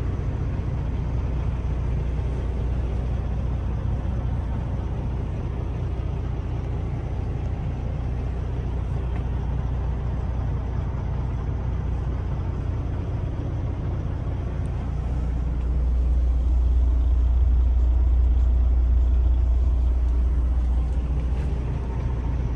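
Diesel semi-truck engine idling, a steady low rumble heard inside the cab, growing louder for a few seconds in the second half.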